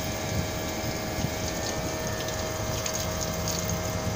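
Haier AV14IMSEVA MRV outdoor unit running through its defrost cycle: a steady compressor hum with a constant mid-pitched whine over it.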